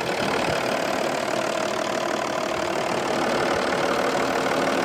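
Audi 2.5 TDI V6 (BDG) diesel engine idling steadily, freshly started. It runs very evenly with no bubbling, a sign that the new head gaskets and rockers have stopped exhaust gas blowing back into the intake.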